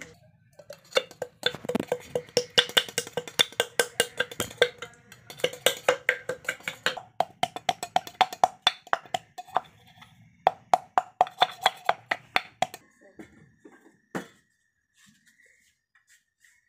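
Black peppercorns pounded in a stainless steel tumbler with a rod: quick repeated knocks, about three or four a second, each with a ringing of the metal cup whose pitch rises about halfway through. The pounding stops near the end, with one last knock a moment later.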